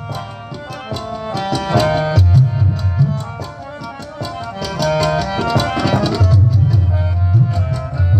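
Live music: a harmonium melody over tabla and drum beats. Heavy low drum strokes come in clusters, the longest from about six seconds in to the end.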